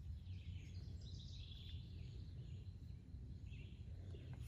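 Faint outdoor background: a low steady rumble with faint bird chirps.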